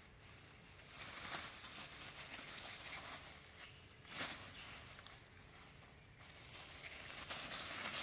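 Faint rustling and crackling of dry leaf litter on the forest floor as feet move through it, with sharper crackles about a second in and about four seconds in.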